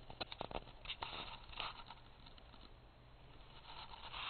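Faint handling noise. A quick run of light clicks near the start, then soft scraping and rustling twice.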